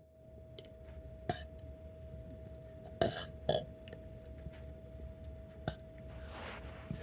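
A person letting out two short little burps about half a second apart, about three seconds in, with a few small clicks around them.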